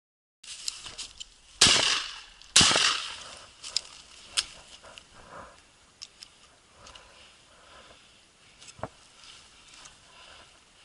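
Dry grass crunching and rustling against a body-worn camera as someone pushes through it, with two loud crunches about a second apart in the first few seconds, then fainter rustles and a few sharp ticks.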